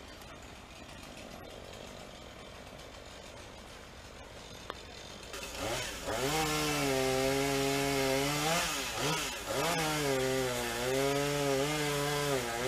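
Chainsaw cutting wood, coming in loud about six seconds in after a quieter stretch of steady background noise. Its engine pitch sags and recovers as the chain bites, with brief dips near the middle.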